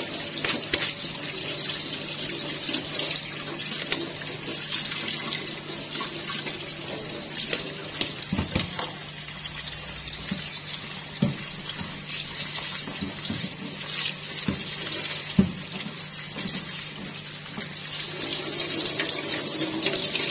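Kitchen tap running cold water over boiled noodles in a plastic colander in a stainless steel sink, a steady splashing hiss as a hand tosses the noodles. A few short knocks come through, the loudest about fifteen seconds in.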